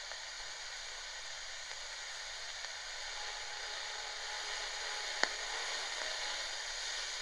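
Shortwave static hissing steadily from a Tecsun GR-138 radio's speaker, tuned on its SW1 band with no station coming through. A single short click about five seconds in.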